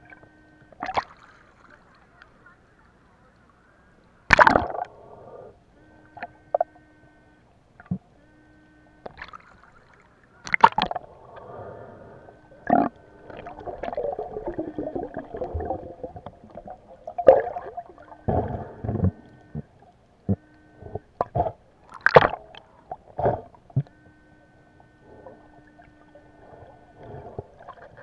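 Muffled sound picked up by a camera held under the sea: irregular knocks and bumps with some gurgling water. A faint steady hum starts and stops several times.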